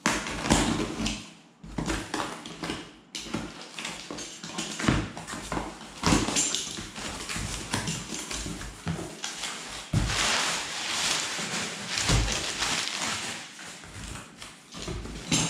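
Cardboard parcel being opened by hand: packing tape cut and pulled, cardboard flaps knocked open, then crumpled paper packing rustling and crinkling as it is pulled out, busiest about two-thirds of the way through.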